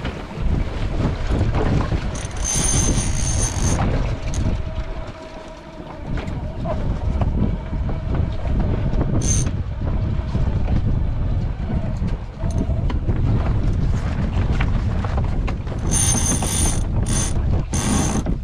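Wind buffeting the microphone aboard a small sailing yacht, with two spells of metallic ratcheting from the deck gear, about three seconds in and again near the end. A faint steady tone runs through the middle.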